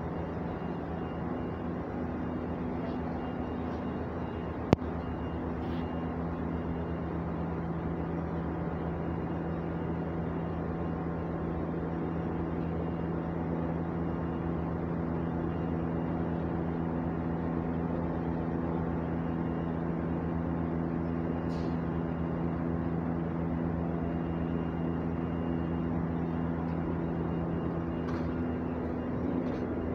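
Honda B16A four-cylinder engine idling steadily, a constant hum. A single sharp click about five seconds in.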